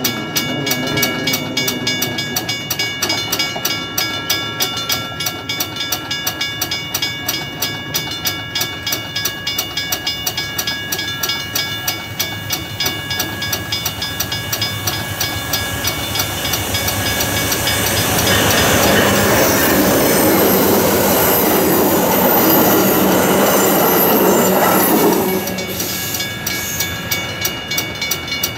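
Train wheels clicking over rail joints in a rapid, even rhythm, with faint high steady tones above. From about 18 seconds in a louder rushing noise swells in and then stops suddenly about 25 seconds in.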